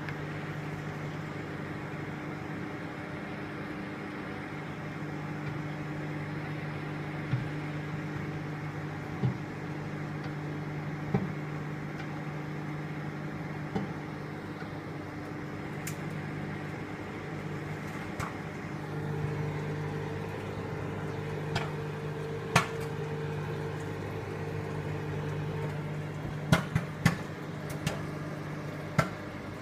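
Microwave oven running with a steady hum while popcorn kernels inside begin to pop: single sharp pops every few seconds at first, coming closer together near the end.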